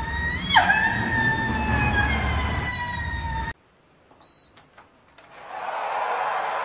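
A steady, siren-like wailing tone with overtones jumps up in pitch about half a second in, falls back, slides slowly lower and cuts off abruptly. After a moment of near silence there is a short electronic beep and a few clicks as a button on an electric fan's base is pressed. A steady rush of blowing air then swells in.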